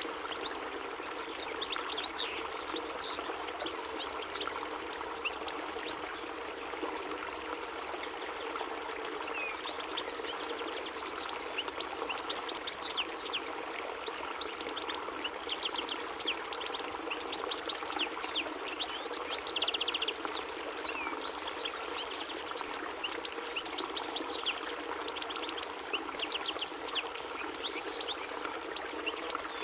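European goldfinch singing: long, fast twittering runs of high chirps and buzzy trills with short pauses between phrases, over a steady background hum.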